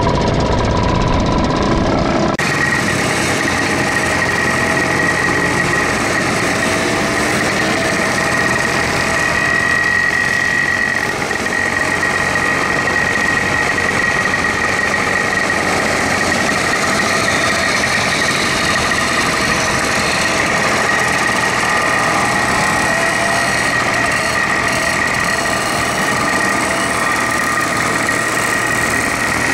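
Small vintage moped engines running steadily on the move; about two seconds in the sound changes abruptly from a single moped riding alongside to a group of old mopeds riding together.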